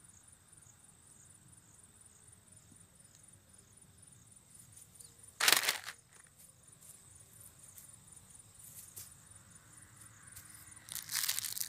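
Faint, steady, high-pitched chirring of insects, broken about five and a half seconds in by a sudden loud noise lasting about half a second, with more loud noise near the end.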